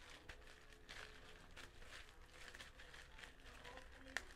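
Near silence: room tone with faint scattered rustles and small clicks, and one sharper click near the end.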